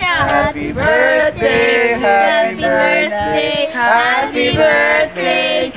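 A group of voices singing together, a birthday song sung loudly.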